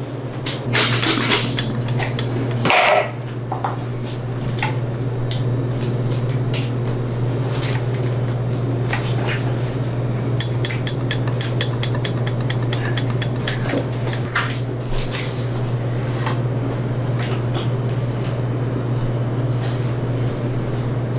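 Butcher's knife scraping and clicking against beef rib bones, with scattered metallic clinks and a run of quick, evenly spaced scraping strokes in the middle, over a steady low hum.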